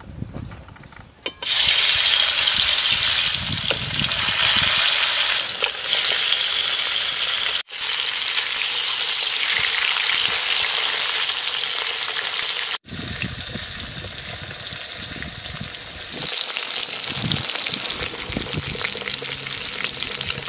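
Whole climbing perch (koi fish) frying in hot mustard oil in a metal wok: a loud, dense sizzle that starts suddenly about a second and a half in as the fish hit the oil. A spatula stirs and turns the fish. The sizzle breaks off sharply twice and picks up again.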